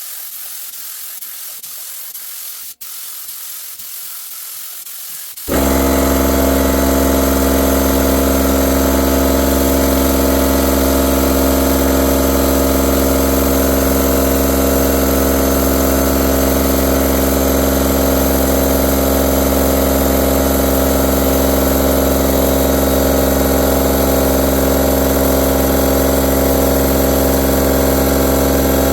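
A steady hiss, then about five seconds in a loud, steady machine drone starts suddenly and runs without change, with a hiss over it.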